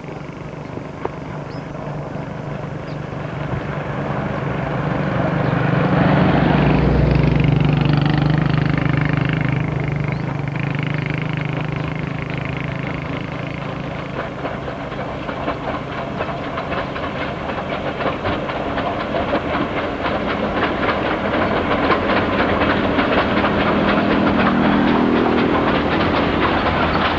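Steam locomotive running on the line, its steam exhaust and wheels clattering in a continuous din. It swells about six to eight seconds in, dips, then grows louder again over the last several seconds.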